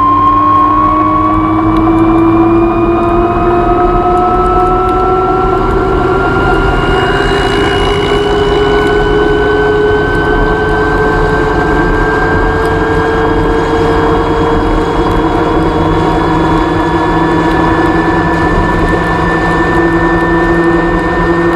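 Gogoro 2 electric scooter's drive running, its whine climbing slowly and evenly in pitch as it speeds up, over a rough steady noise. This is the noise the owner posts as an abnormal chain noise.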